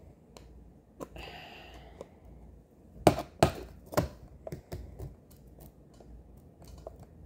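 Hard plastic clicks and taps of a clear acrylic diamond-painting piece knocking against its round acrylic stand as it is fitted into the stand's slot, with three louder clicks around three to four seconds in and lighter taps after. A brief rustle about a second in.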